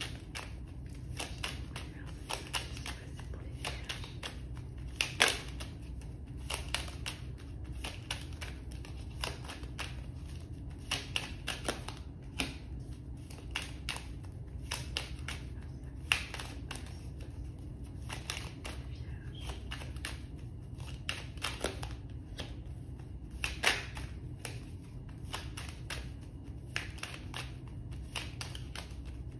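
A deck of tarot cards shuffled by hand, the cards sliding and tapping against each other in a steady run of soft clicks, with sharper snaps about five seconds in and again near the end, over a low steady hum.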